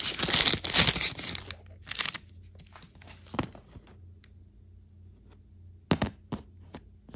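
Clear plastic bag crinkling loudly for about a second and a half as a new throttle body gasket is pulled out of it. After that come a few faint, scattered clicks and rustles.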